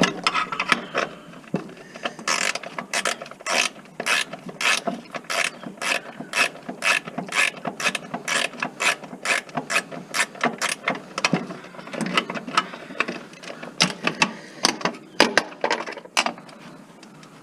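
Hand socket ratchet wrench clicking in quick runs as its handle is swung back and forth, working a fastener loose; the clicking stops near the end.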